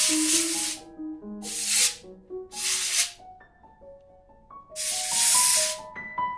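Compressed-air blow gun hissing in four short blasts, the last, about five seconds in, the longest, as small shotgun lock parts are blown clean. Piano music plays underneath.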